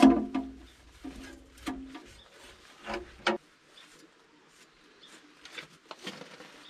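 Metal clanging as a perforated steel panel is knocked against a steel blade to shake debris off: a loud ringing clang at the start, two lighter ringing clanks between one and two seconds in, two knocks at about three seconds, then only faint light taps and rubbing.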